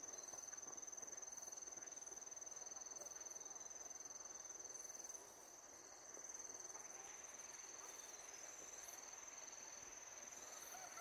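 Insect trilling on one steady high-pitched note, over faint even background noise.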